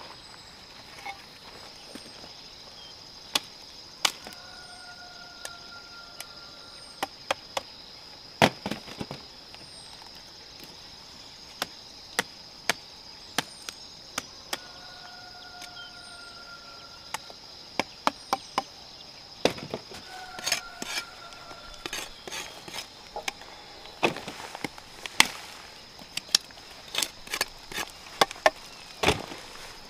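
Irregular sharp chopping strikes, coming more often in the second half, over a steady high-pitched insect drone.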